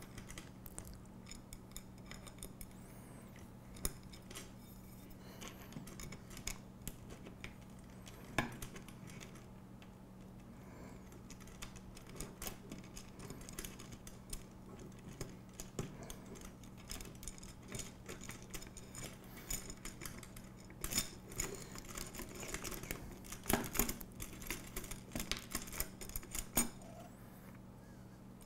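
Aluminium extrusion and small metal brackets clicking and clinking as they are handled and lined up on a work mat. The clicks are irregular, with a cluster of sharper ones near the end.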